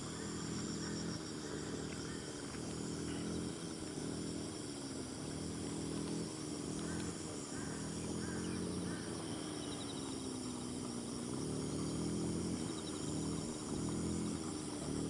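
Insects trilling steadily, with fine rapid pulsing in the high range, over a low droning hum that slowly wavers up and down in pitch.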